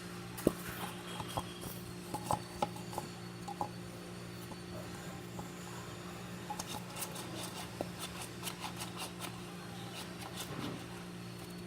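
Light taps, clicks and scraping of containers and a utensil being handled while slime ingredients are mixed, with a few sharper knocks in the first few seconds and a run of quick scratchy clicks later. A steady low hum runs underneath.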